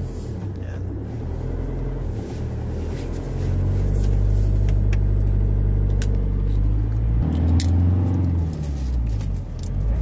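Car engine running and road noise heard from inside the cabin while driving; the engine grows louder about three and a half seconds in and its note changes about seven seconds in.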